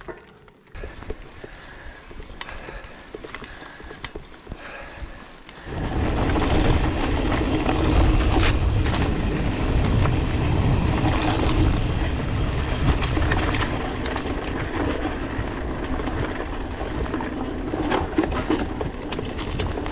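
Canyon Grand Canyon AL SL 9.0 mountain bike rolling over a rough dirt forest trail: tyres rumbling and the bike rattling with many small clicks. Quieter at first, it gets much louder about six seconds in and stays so.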